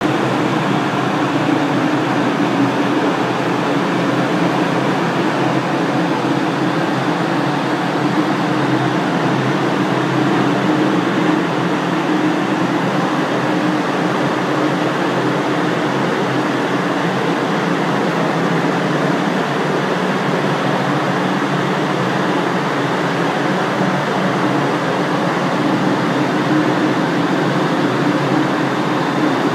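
Paint spray booth's ventilation fans running: a steady rush of air with a low hum.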